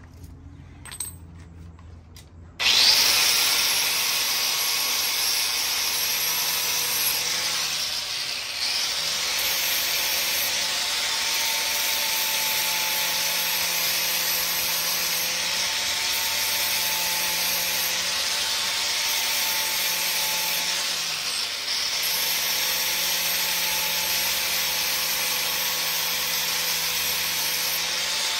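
Electric grinder cleaning a small steel plate, starting about two and a half seconds in after a light knock and then running steadily with a constant motor whine, dipping briefly twice as the pressure on the metal changes.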